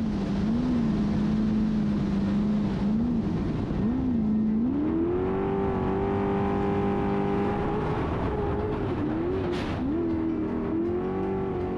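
Racing jet boat's piston engine running hard. The engine note dips and recovers a few times, climbs to a higher steady pitch about halfway through, then dips briefly twice more near the end.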